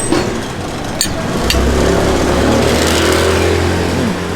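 A motor vehicle's engine passing close by, growing louder about a second and a half in and dropping away near the end. A couple of sharp clicks come just before it.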